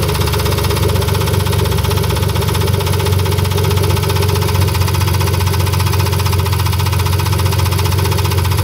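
BMW S52 inline-six engine idling steadily with a fast, even ticking/knocking. New lifters have not cured it, and it stays with each spark plug disconnected, so the owner guesses it is not a rod knock.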